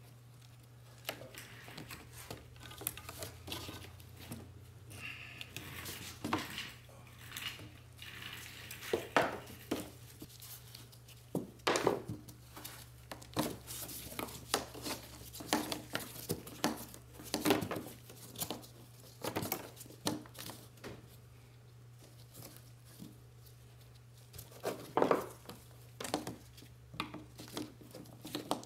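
Scattered clicks, light knocks and rustling as gloved hands work the fuel line fittings and wiring connector loose from the fuel pump module on top of a fuel tank. A steady low hum runs underneath.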